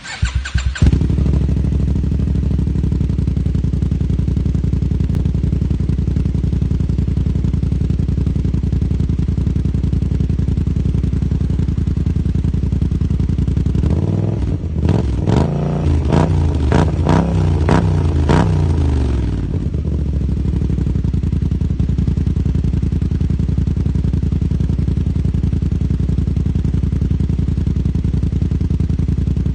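Kymco AK550 maxi-scooter's parallel-twin engine breathing through an Akrapovič full exhaust system. It starts up in the first second and idles steadily, then is given a run of about six quick throttle blips in the middle before settling back to idle.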